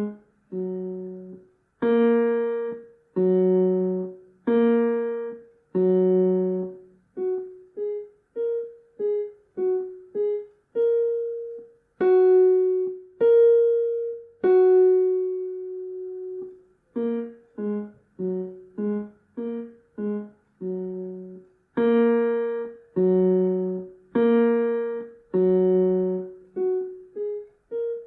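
Piano playing a simple beginner melody in quarter, half and whole notes, switching between loud and soft passages. The loud notes come about 2 to 6 seconds in and again near the end, softer notes lie between, and a few long held notes sound in the middle.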